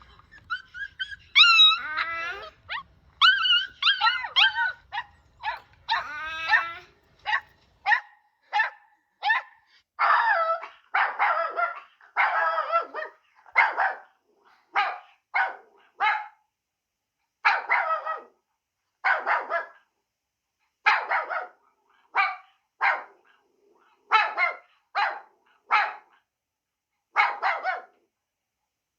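A dog whining and yelping in high, wavering cries for the first several seconds, then barking over and over, roughly one bark a second with short gaps between.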